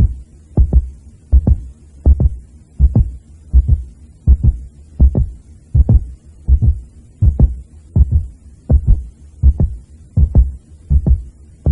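Heartbeat sound effect: deep double thumps, lub-dub, repeating steadily at about four beats every three seconds.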